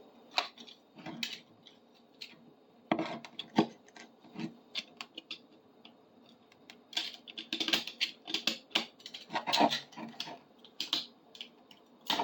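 Knife scraping and chipping hardened glue off a metal bar clamp: scattered short scrapes and clicks, coming in bunches with pauses between.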